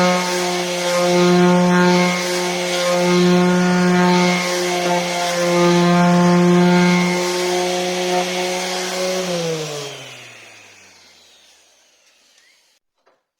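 Electric power tool motor running at a steady pitch with a hiss that swells and fades every second or two. About nine seconds in it is switched off and winds down, its pitch falling until it stops.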